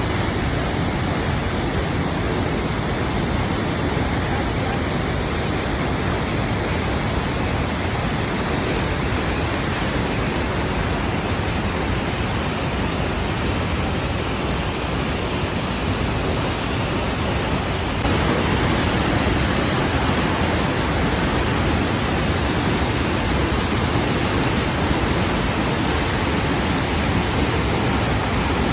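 Rushing water, a steady even roar of falling or fast-flowing water; about two-thirds of the way through it suddenly becomes a little louder and brighter.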